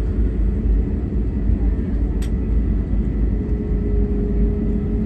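Steady low cabin rumble of an Airbus A320neo's CFM LEAP-1A engines as it taxis, heard from a window seat behind the wing. A short click comes about two seconds in, and a faint steady hum joins about three seconds in.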